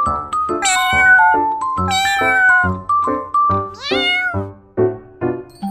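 A domestic cat meowing about three times, each meow rising and falling in pitch, over background music with a stepping melody.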